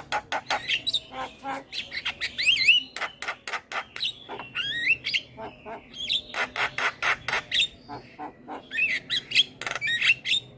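Javan myna singing a busy, varied song: rapid sharp clicking notes mixed with quick rising and falling whistles and harsh squawks, with short pauses between phrases.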